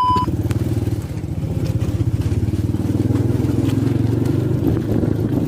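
Small motorcycle engine running steadily with a fast, even pulsing beat.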